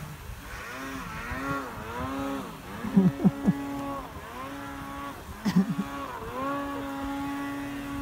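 Snowmobile engine revving up and down again and again as the sled is worked through deep snow on a slope, then holding a steady pitch near the end. A few short loud knocks come about three and five and a half seconds in.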